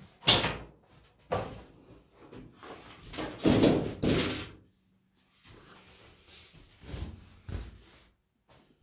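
Handling noise on the plastic back cover of a large flat-screen TV: a sharp knock just after the start, another about a second and a half in, a louder stretch of rubbing and scraping around three and a half to four seconds in, and a few lighter knocks near the end.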